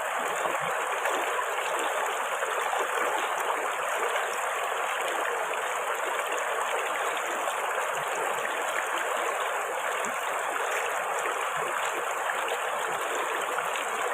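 River water flowing and rippling over rocks in a steady, even rush.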